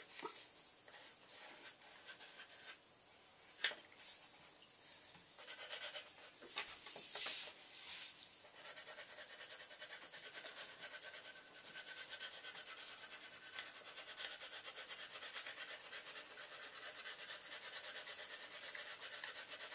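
Graphite pencils scratching on paper: quick back-and-forth shading strokes, scattered with a couple of sharp taps in the first half, then dense and continuous from about halfway on.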